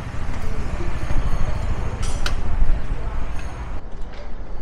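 Road traffic heard from a moving bike, with wind rumbling on the microphone and a brief high squeal about two seconds in.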